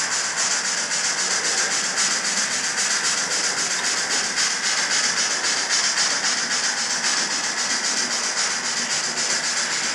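Model steam locomotive's sound decoder (ESU LokSound) playing steady, quick, even exhaust chuffs with hiss as the locomotive runs.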